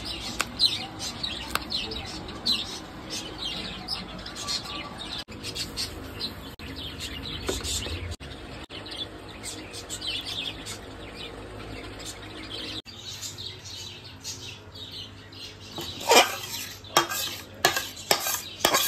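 Small birds chirping over and over in the background. Near the end, a metal ladle scrapes and clinks against a metal cooking pan in a quick series of sharp strokes.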